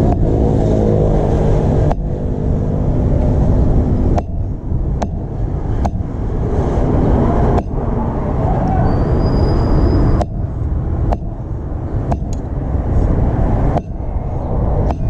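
Street traffic noise: motor vehicle engines running, with a steady engine hum through the first four seconds and a series of sharp clicks.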